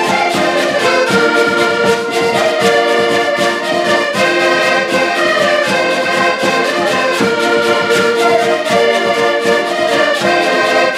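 Several accordions playing a folk tune together in sustained chords and melody, with a bass drum struck to a steady beat.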